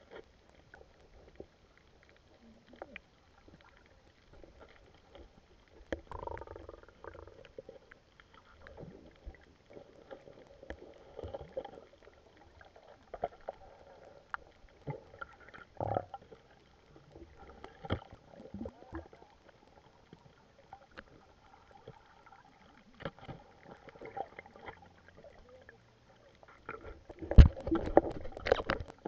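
Muffled underwater sound from a camera held below the surface: faint water movement and scattered knocks and clicks, with a louder bout of thumps and water noise near the end.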